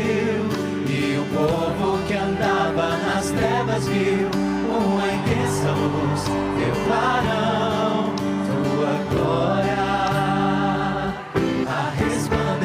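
Christian devotional music: several voices singing together over sustained instrumental chords.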